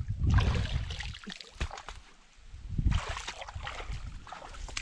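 Muddy water sloshing as a large hand net is hauled through a shallow drying pool. Low rumbling noise comes in two stretches, at the start and again about three seconds in.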